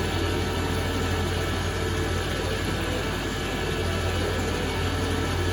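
Colchester Master lathe running steadily with an even hum while a boring tool is fed slowly through the bearing bore of a billet aluminium wheel hub.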